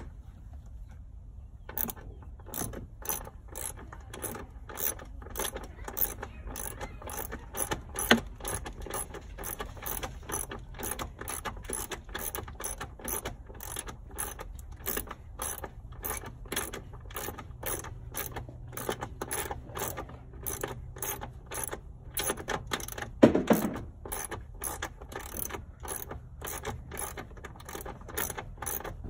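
Short ratchet with a 13 mm socket clicking in a steady run, a few clicks a second, as it backs out the bolts beside the sun visor. One louder knock comes about three quarters of the way through.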